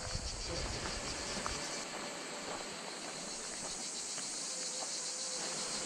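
Cicada chorus: a steady, high-pitched shrill made of fast, even pulsing. A low rumble sits under it for the first second and a half.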